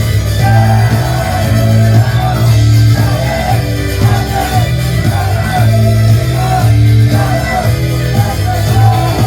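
Loud rock-style idol pop song playing through a concert hall's PA, a wavering sung melody over a pulsing heavy bass and electric guitar.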